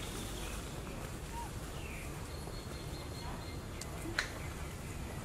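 Outdoor forest ambience: a steady low rumble with a few faint short animal calls, and one sharp click about four seconds in.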